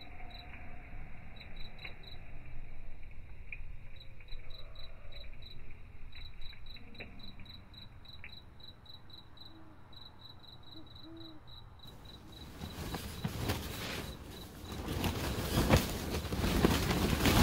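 A cricket chirping in rapid, evenly spaced pulses, with a few faint crackles from a wood stove fire. About twelve seconds in the sound changes abruptly to wind gusting against the tent, growing louder toward the end.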